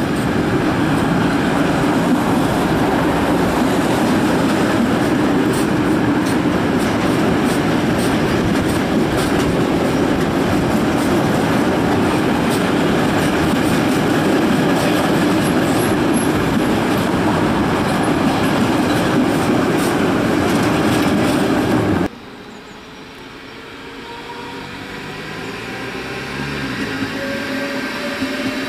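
Freight train of covered sliding-wall wagons rolling past, a loud steady rumble of wheels on rail with many light clicks. It cuts off abruptly about three-quarters of the way through. A quieter red electric multiple unit follows, its motors giving a faint whine that slowly rises in pitch.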